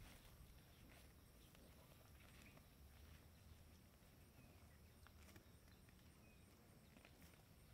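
Near silence: faint scattered soft clicks and rustles of cows tearing and chewing grass as they graze.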